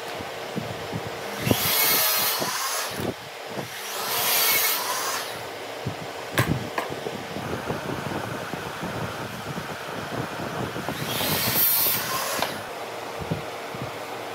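Pencil drawn along a straightedge on pine boards: three scratchy strokes about a second long each, with light taps and knocks of wood and tape measure on the bench over a faint steady hum.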